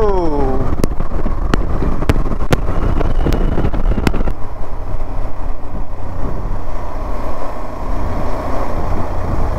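KTM Adventure 390's single-cylinder engine running at road speed, with wind buffeting the helmet microphone. A few sharp clicks come in the first four seconds.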